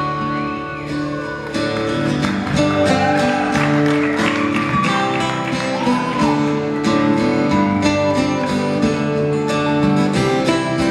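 Live acoustic guitars playing an instrumental passage: a steady strummed rhythm with held and picked notes over it, including a few short sliding notes.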